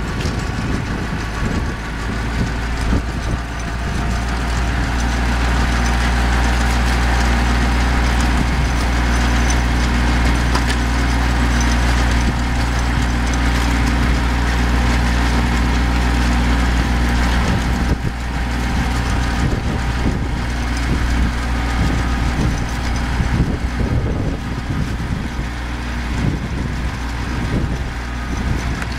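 Kubota compact diesel tractor running steadily under load while it drives a red PTO-driven rotary row tiller-ridger through soil: a steady engine hum with a rushing noise over it.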